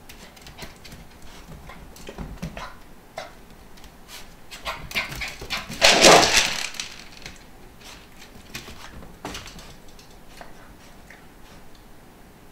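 A corgi puppy moving about: scattered light clicks and knocks, and one loud, noisy sound lasting about a second around halfway through, as she noses into her food bowl.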